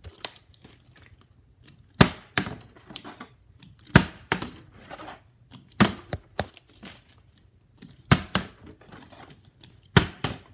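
A partly filled plastic water bottle being flipped and landing on a wooden floor about every two seconds, five times. Each landing is a sharp knock followed quickly by a smaller one as the bottle bounces and tips over: missed flips that don't land upright.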